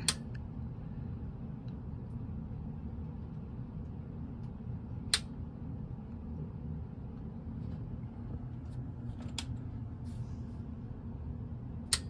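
Custom water-cooled PC switched on for a leak test: a steady low hum of the loop's pump and case fans, with a sharp click as it starts and a few more sharp clicks later on.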